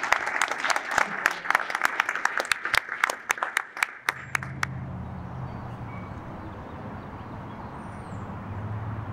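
A small group of people clapping, their claps thinning out and stopping about four seconds in; after that, a steady low hum.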